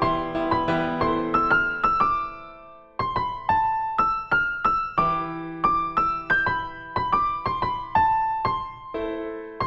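Background music: a slow keyboard melody of struck notes over held chords, each note ringing and fading. It thins out and nearly dies away about two and a half seconds in, then picks up again.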